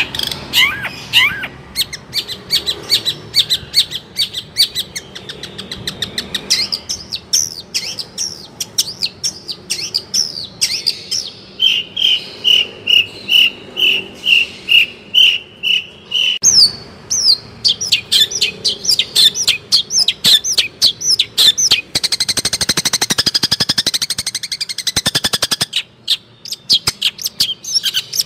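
Long-tailed shrike (cendet) singing a fast, varied song of sharp chirps. Midway it repeats one note about twice a second for several seconds, and near the end it breaks into a rapid rattling trill.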